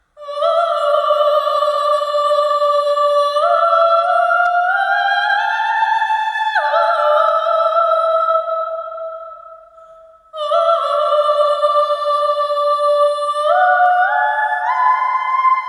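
Music: a sustained, theremin-like pitched tone that climbs in small steps, drops back suddenly, fades out about two-thirds of the way through, then starts again and climbs once more.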